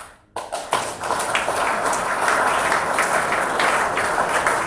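Audience applause: many hands clapping together, setting in about half a second in and holding steady.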